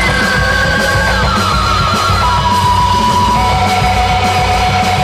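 Loud rock music with a dense, heavy low end and a lead line of long held notes stepping down in pitch.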